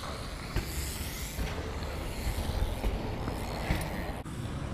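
Steady outdoor rumble of wind and BMX bike tyres rolling over a dirt jump track, with a few faint knocks.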